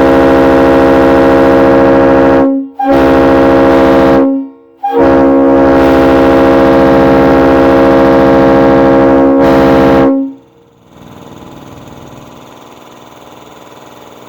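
Multi-chime locomotive air horn sounding a chord of several steady tones in three blasts: the first, already going, stops about two and a half seconds in, a second short blast follows, then one long blast of about five seconds that cuts off. After it a steady low hum remains, much quieter.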